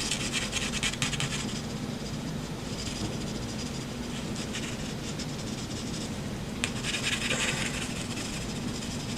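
HB mechanical pencil lead shading across drawing paper: scratchy rubbing in runs of quick strokes, with short pauses between runs and the strongest run about seven seconds in.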